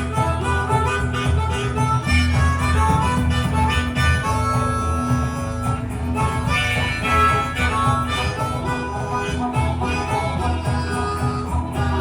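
Live band music with a harmonica playing the lead melody over guitar and a steady bass line.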